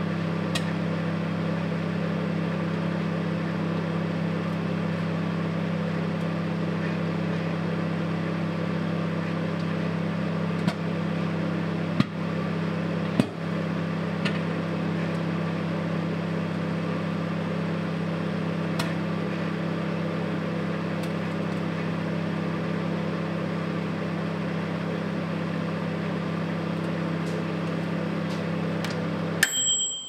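Morphy Richards microwave oven running with a steady hum while an egg heats inside, broken by a few sharp pops around the middle. Near the end the hum cuts off and the timer bell dings once as the cooking cycle ends.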